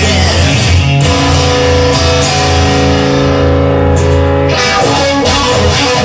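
Rock song led by electric guitar. About a second in, a chord is struck and left ringing for about three and a half seconds before the beat picks up again.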